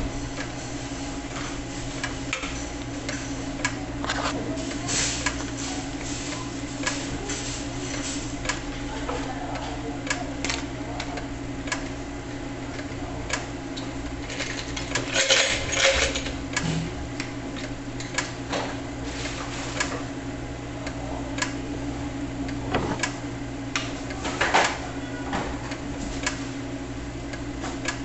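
Gural electric cheese slicer running with a steady motor hum while its carriage is slid back and forth past the spinning circular blade, with scattered clicks and knocks. There is a louder burst of noise about halfway through, and a sharp knock a little later.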